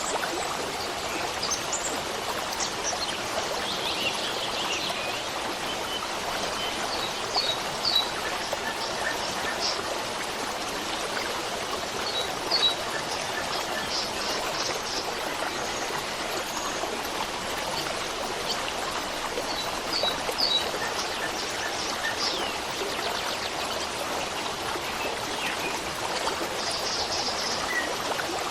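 Running stream water flowing steadily, with small birds chirping briefly now and then above it.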